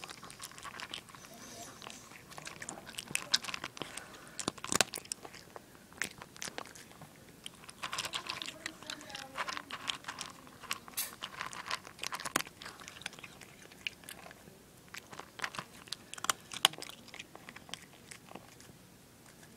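A cat crunching dry kibble from a bowl: irregular sharp crunches as it bites and chews.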